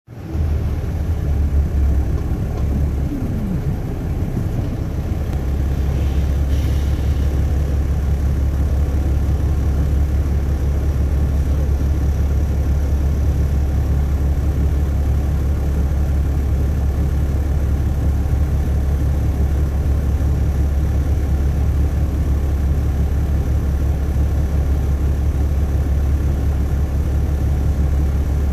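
Inside a 2007 MCI D4500CL coach: the diesel engine note falls away as the bus slows to a stop in the first few seconds, then the engine idles with a steady low drone.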